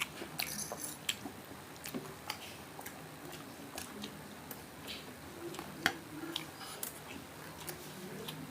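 Close-up eating sounds: irregular crunches and clicks of crispy fried pork belly being bitten and chewed.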